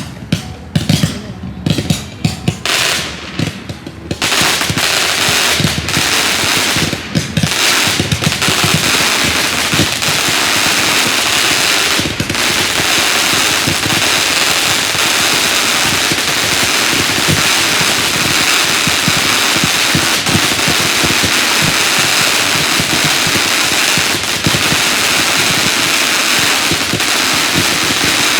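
Patriot Chicken firework going off: a few separate sharp pops in the first few seconds, then a dense, unbroken crackling like a rapid string of firecrackers that keeps going to the end.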